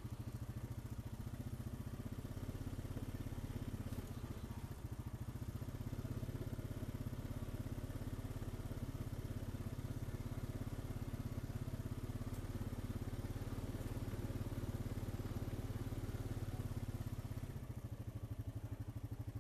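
ATV engine running steadily as it is ridden along, easing to a lower, quieter note near the end.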